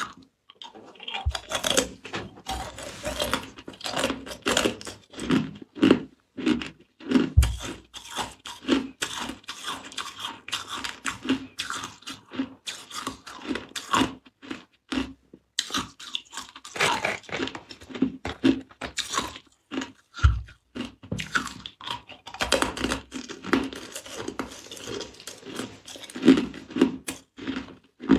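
Ice cubes being crunched and chewed in the mouth: a long, irregular run of crisp cracks and crunches, with a couple of heavier thuds.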